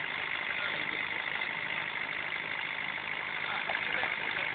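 Fishing launch's engine running steadily while the boat is underway.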